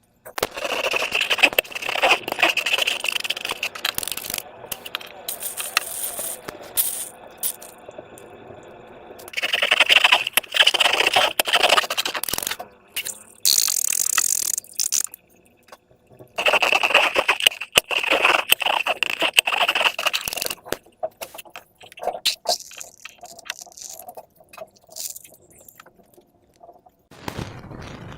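Hands working clear slime: wet squishing, crackling and scraping, louder in three stretches of a few seconds each.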